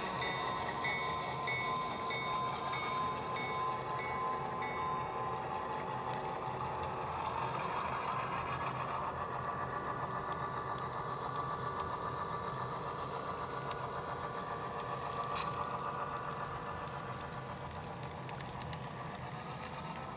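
HO scale model train running past on the layout track: the steady rolling rumble and motor whine of the Western Maryland diesel locomotives followed by their freight cars. A few high steady tones ring through the first five seconds, and a new whine rises about seven seconds in and holds.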